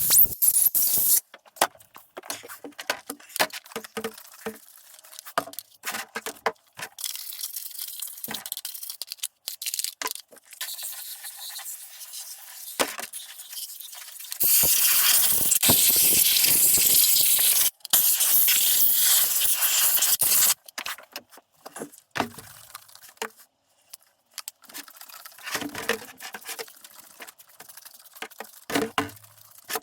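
A chainsaw being cleaned: short scrubbing and scraping sounds, with a long loud hissing spray a little past halfway that breaks off briefly once. The spray is the loudest thing.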